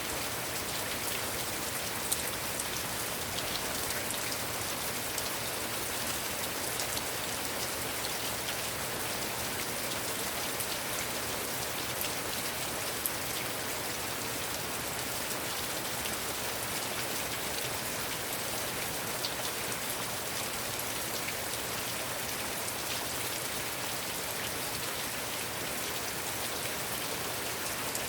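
Heavy rain falling steadily, a dense hiss with scattered sharper drop hits on surfaces close by.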